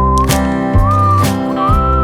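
Background music: an upbeat whistled melody over strummed guitar with a steady beat.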